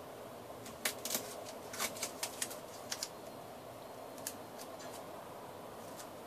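Paper crackling and ticking in quick clusters of short clicks as a paper airplane wing is bent into a curve by hand, with one more click a little later.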